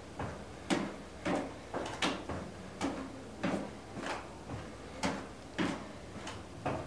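Footfalls of a person stepping up and down on a plastic aerobic step, in a steady beat of about two knocks a second, during a timed fitness step test.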